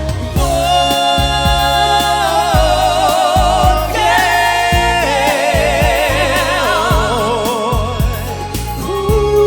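Slow ballad intro music: a melody with a wide vibrato over sustained bass notes and a regular soft beat.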